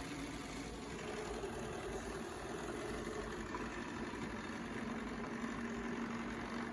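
Robot vacuum cleaner running: a steady motor and brush whir with a faint held hum.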